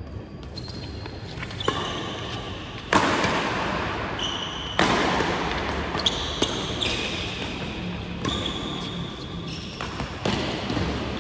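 Badminton doubles rally in a reverberant hall: sharp racket-on-shuttlecock hits, irregularly spaced a second or two apart, the loudest a few seconds in. Court shoes squeak briefly on the floor between the hits.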